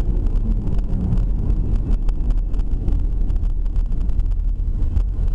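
Steady low rumble of a moving car's engine and road noise, heard from inside the cabin by the dashcam.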